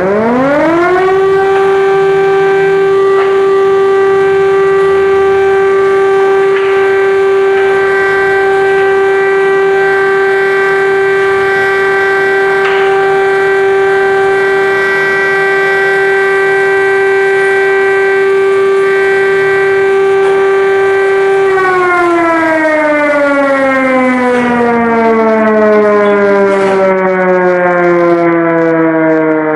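Air-raid siren sounding an alert: it winds up in the first second to a steady wail, holds it, then winds down with slowly falling pitch from about 22 seconds in.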